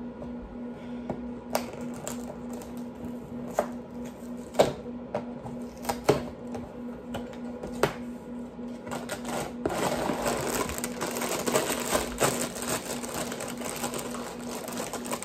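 Cardboard cracker box being handled and plastic snack packs crinkling as they are pulled from it: a few separate sharp taps and knocks, then dense crinkling from about ten seconds in.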